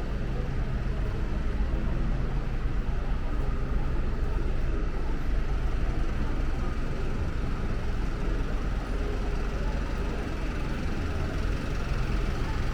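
City street ambience: steady traffic noise with vehicle engines running, heaviest in the low rumble.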